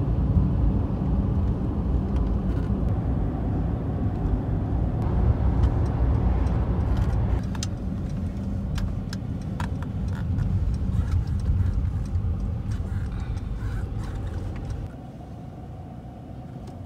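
A car driving, heard from inside the cabin: steady low road and engine rumble, which drops to a quieter hum about fifteen seconds in, with a few faint clicks.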